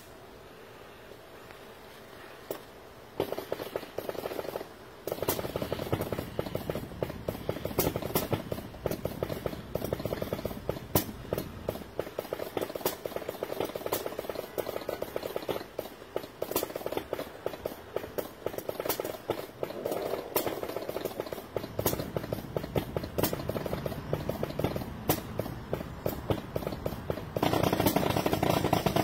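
Motor-driven mechanism of an animated Halloween plant prop running: steady mechanical running noise and rattle with frequent sharp clicks and clacks from its moving parts. It starts about three seconds in, drops out briefly around five seconds, and gets louder near the end.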